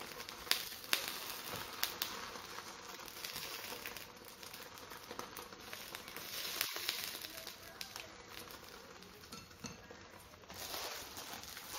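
Sauce-marinated lamb with onions and mushrooms sizzling on a paper-lined electric hot plate, with chopsticks clicking and the cooking paper crinkling as the meat is stirred in the first couple of seconds. The sizzle dips a few seconds in and swells again partway through.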